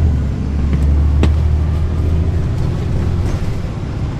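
Caterpillar C13 ACERT diesel engine of a NABI 416 transit bus, heard from the rear seat inside the cabin, running with a deep steady drone that eases a little near the end. A sharp click sounds about a second in.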